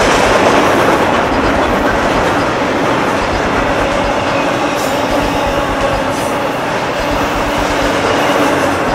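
Double-stack container train's well cars rolling past, a steady noise of steel wheels on the rails.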